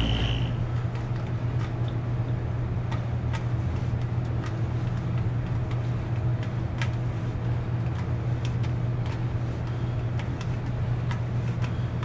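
Steady low mechanical hum, like a motor running, with faint small clicks and taps now and then.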